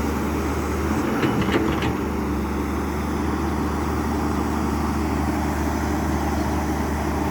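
Hydraulic excavator's diesel engine running steadily under load while the bucket trims a slope, with a few light metallic clanks a little after a second in.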